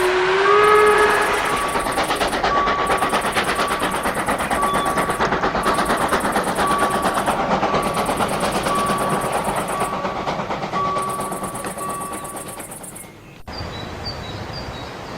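Train-passing sound effect. A horn note rises slightly at the start, then a fast rhythmic rumble of wheels on rails runs under a steady beep repeating about once a second. The rumble fades and cuts off abruptly near the end.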